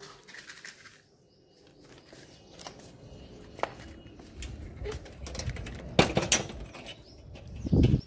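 A metal door being opened, with scattered clicks, knocks and footsteps; the loudest pair of knocks comes about six seconds in, and a short low rumble builds just before the end and cuts off suddenly.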